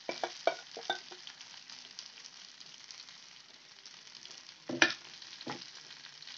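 Marinated chicken leg pieces sizzling in oil in a kadai, with a spoon spreading the masala over them. The spoon knocks against the pan a few times in the first second, once loudly near five seconds in, and once more softly just after.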